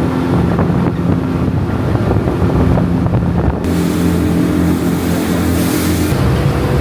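Speedboat engine running steadily at speed, with wind rushing over the microphone; the hiss of wind and water grows louder about three and a half seconds in.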